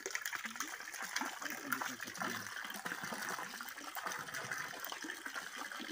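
Water running and splashing steadily, with faint voices talking underneath.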